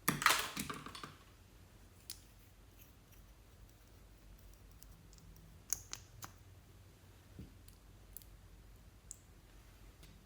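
Slime being worked by hand, crackling and clicking densely for about a second, then giving off single sharp clicks and pops every second or two.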